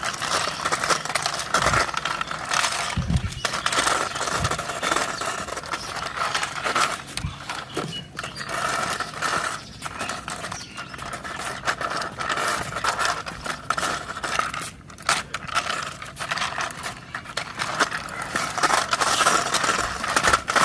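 Toy CNG auto rickshaw pushed along by hand, its small wheels rolling and scraping over a rough surface with continual irregular clicks and rattles.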